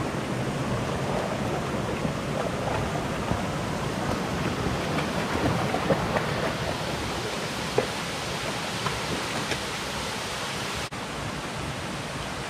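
Steady rushing of a sandstone creek running over rocks and small cascades, with a few faint clicks in the middle.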